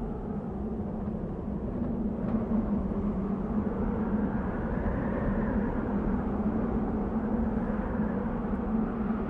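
Wind blowing in a steady rush, with a low steady tone beneath it, swelling a little about halfway through.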